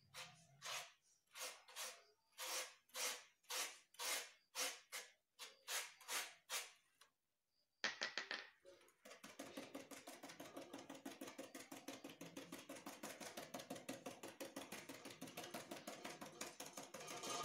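Paintbrush scratching and dabbing on a polystyrene foam (thermocol) sheet. First come separate strokes about two a second, then after a short pause a fast run of dabs, about eight a second.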